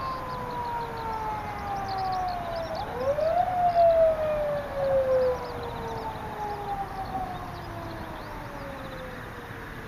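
A siren wailing: a long, slowly falling tone that swoops up about three seconds in, peaks, then sinks slowly again. Faint high chirps of small birds come through behind it.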